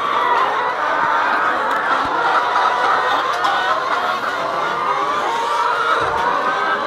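Many caged laying hens clucking and cackling at once, a dense, constant chorus of overlapping calls.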